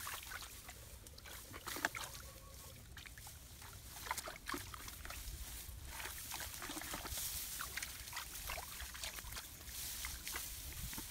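Rustling rice stalks with small splashes and squelches of hands working in muddy water, broken by scattered irregular crackles and one sharper knock about two seconds in.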